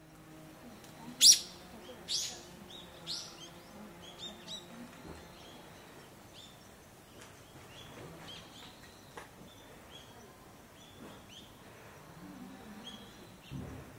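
Wild birds calling among trees: a few loud, sharp high calls in the first three seconds, then a run of short high chirps repeating throughout. A dull low bump near the end.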